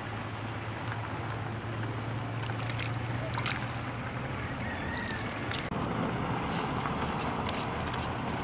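Raw chicken pieces being turned and rubbed by hand in a metal bowl, wet squelching and scraping over a steady background hiss, with a sharp knock near the end.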